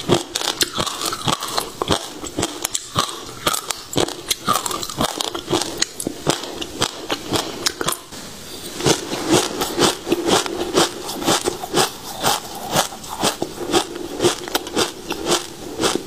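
Close-miked eating of passion fruit seeds: rapid crisp crunches and crackles as the seeds are bitten and chewed, with a brief lull about halfway before the crunching picks up again.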